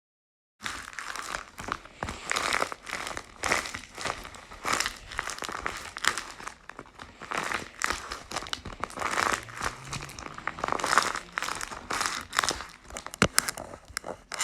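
Crinkling of a handmade taped paper squishy being squeezed over and over, in bursts about once a second, with a couple of sharp clicks near the end.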